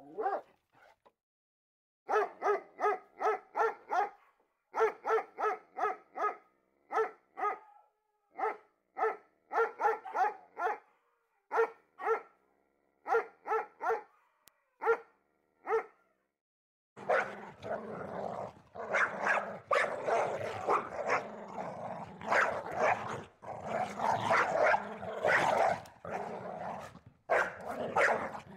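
A dog barking in quick runs of sharp, pitched barks, three or four a second with short pauses between runs. About 17 s in, the sound switches to denser, rougher barking over a steady background noise.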